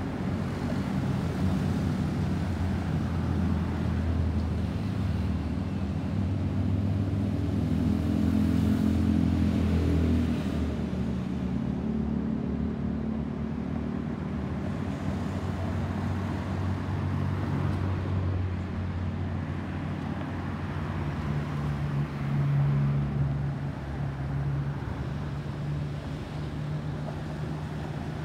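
Distant jet engines of an Airbus A320-216 (CFM56-5B turbofans) passing high overhead, heard as a steady low rumble with slowly drifting tones.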